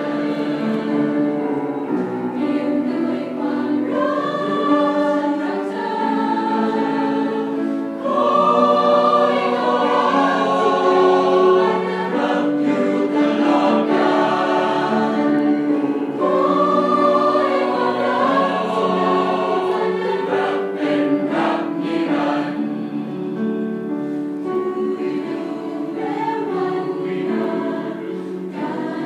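Mixed choir of men's and women's voices singing a song in harmony, with sustained held notes that swell louder about eight seconds in and again past the middle.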